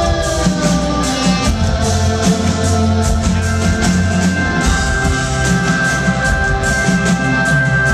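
A rock band playing live, with drums beating steadily under guitar and long held notes, recorded loud from the audience.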